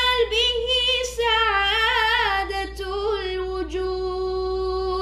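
A boy singing an Arabic nasheed unaccompanied, his voice wavering through ornamented turns, then holding one long steady note over the last two seconds.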